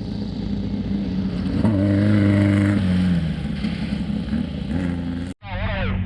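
Off-road race vehicle's engine running hard, stepping up in pitch and getting louder about a second and a half in as it revs under load. It cuts out abruptly near the end.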